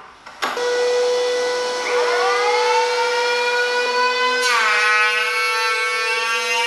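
Electric power tool switched on: its motor starts with a whine that rises in pitch and settles, then the pitch shifts abruptly about four and a half seconds in, as the tool takes up load or changes speed.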